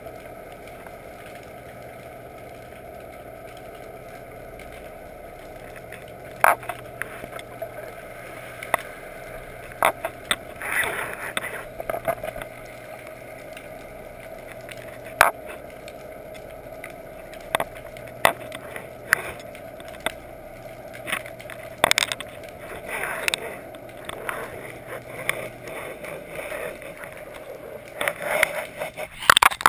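Muffled underwater sound heard through a GoPro's waterproof housing being drawn through the water on a fishing line: a steady dull rush of water, with sharp irregular clicks and knocks every second or two that come thicker near the end.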